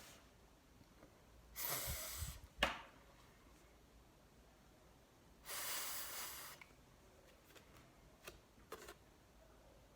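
A voice making the voiceless 'th' phonics sound twice, each a breathy hiss of about a second with no voiced vowel, a few seconds apart, with a light click after the first.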